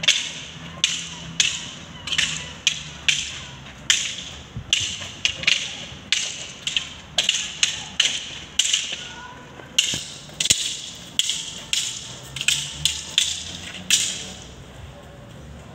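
Long wooden sticks clacking against each other in quick, irregular strikes, about two a second, as two men spar in stick fighting. The strikes stop about 14 seconds in.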